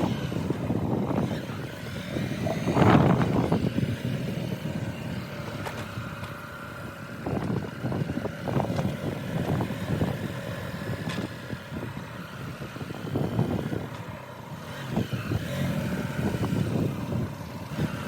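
Motorcycle being ridden along a road: engine and road noise that rise and fall unevenly.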